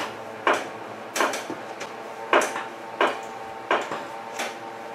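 Hydraulic scissor lift table being pumped up: six sharp metallic clacks with a brief ring, one per pump stroke, coming unevenly at just under a second apart.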